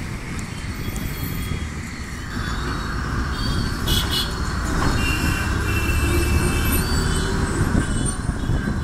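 City bus running along a road, heard at an open side window: a low engine and road rumble with tyre hiss, getting louder after about two seconds, and thin high squeals around the middle.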